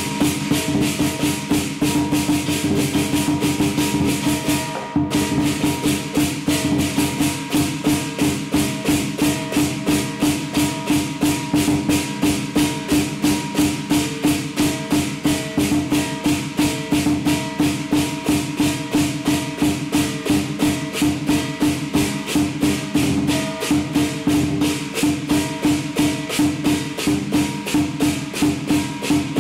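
Lion dance percussion: a big drum, cymbals and gong played together in a fast, even beat of about three strokes a second, with the cymbals clashing on each stroke. The playing breaks off briefly about five seconds in, then carries on.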